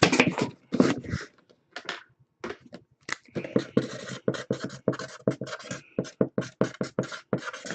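A quick run of sharp clicks and scrapes from cards and their plastic packaging being handled, sparse at first and then about five or six a second, through a scratchy-sounding camera mic.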